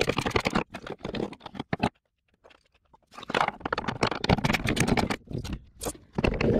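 Socket ratchet wrench clicking in quick, dense runs while a fender bolt by the hood hinge is turned out. The clicking breaks off for about a second in the middle, then resumes.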